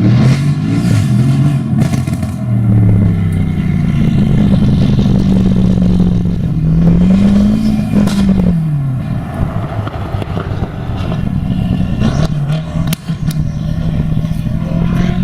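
Modified performance car engine revving, its pitch climbing to a peak about eight seconds in and then falling away, with a few sharp cracks from the exhaust.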